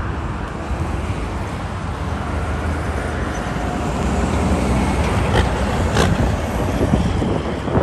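Road traffic with a loaded cab-over dump truck passing, its diesel engine running with a low rumble that grows louder about halfway through. There are a couple of sharp clicks near the end.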